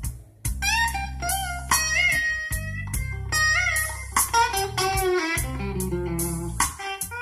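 Blues-rock music with electric guitar, bass and drums, played over a car audio system (Kenwood KDC-100U head unit with an Art Nouveau AN4.400 amplifier) and heard inside the car cabin. There is a short break in the music just after the start.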